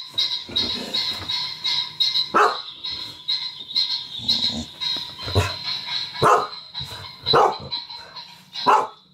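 A dog barking: about five single, loud barks spaced one to three seconds apart, over a steady high-pitched tone.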